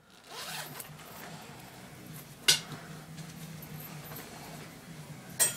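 Faint fabric rustling as a sweater is pulled off, with two sharp knocks, one about halfway through and one near the end.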